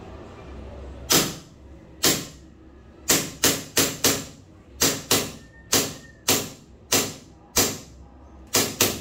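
Airsoft M92 Beretta gas blowback pistol firing about fourteen single shots, each a sharp crack with the slide cycling. The shots come irregularly, some about a second apart and others in quick runs, until the magazine is emptied.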